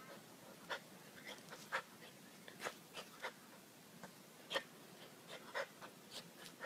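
Bull terrier puppy playing and pouncing: about a dozen faint, short, sharp sounds at irregular intervals, the loudest about four and a half seconds in.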